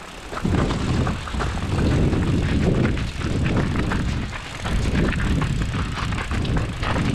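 A mountain bike being pushed at a run up a rough stony track: tyres crunching and the bike rattling with many small clicks and knocks, over a heavy, uneven low rumble on the microphone.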